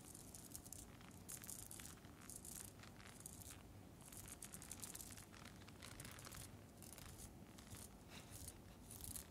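Soft, close-up scratching and rubbing on a rhinestone-studded face mask, in short hissy strokes roughly once a second.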